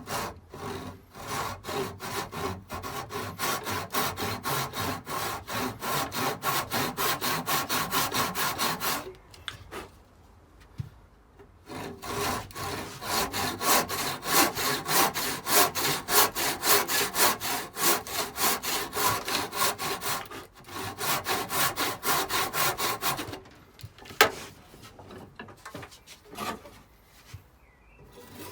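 Handsaw ripping a square timber along the grain, in quick, even push-and-pull strokes. The sawing stops twice for a few seconds, with a single sharp knock during the second pause.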